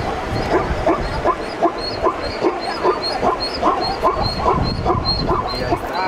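Plains zebras calling, a fast run of short barking yelps, about three a second and overlapping as if from several animals.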